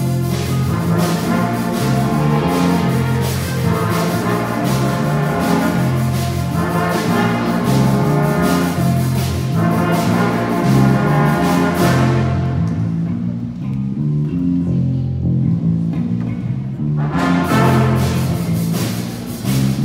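A school jazz band playing: a repeating low line under drum-kit cymbals and horns. About two-thirds through, the horns and cymbals drop out for a few seconds, leaving only the low instruments, and the full band comes back in near the end.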